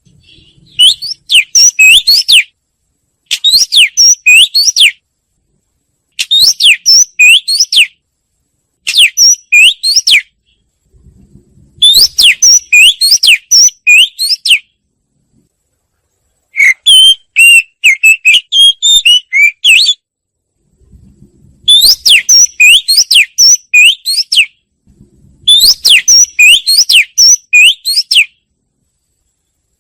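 Wagtail singing: bursts of quick, high twittering notes, each one to three seconds long, repeated about eight times with pauses of roughly a second between them.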